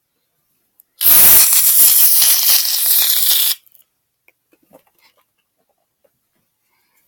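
Aerosol shaving cream can spraying foam in one loud, hissing burst of about two and a half seconds, starting about a second in and stopping suddenly.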